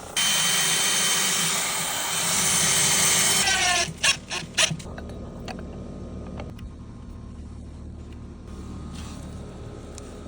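Power drill running for about three and a half seconds, then winding down with a falling whine. A few sharp clicks or knocks follow, and then a low steady background hum remains.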